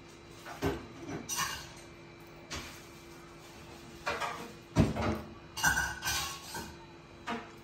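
Irregular clinks and knocks from a plastic drinking cup, its lid and straw being handled by a monkey, about ten in all, the loudest a little under five seconds in.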